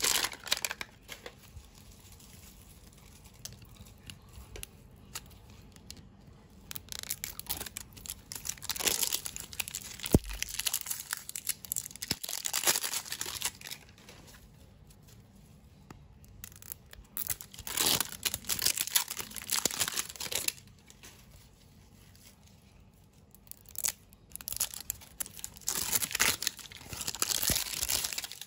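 Plastic toy wrappers crinkling and tearing in several spells of handling, with quieter pauses between. A single sharp click with a low thud about ten seconds in.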